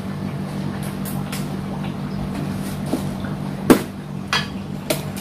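Steady low hum of an aquarium pump, with a few sharp clicks and knocks from handling a plastic fish-food container, the loudest about three and a half seconds in.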